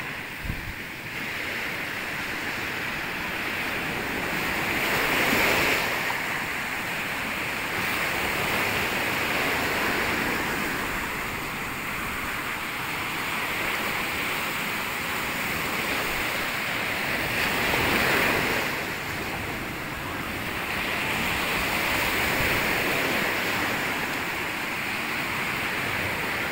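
Surf breaking on a sandy beach: a steady wash of waves that swells louder about five seconds in and again around eighteen seconds in.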